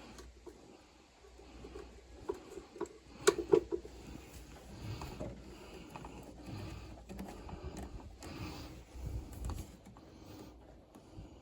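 Scattered clicks and knocks of hand work on sheet-metal furnace parts, with a cluster of sharper knocks about three and a half seconds in.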